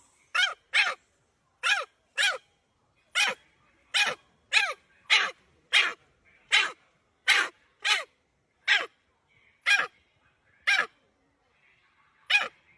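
An animal's repeated short calls, each dropping quickly in pitch, about one or two a second, with a longer pause near the end.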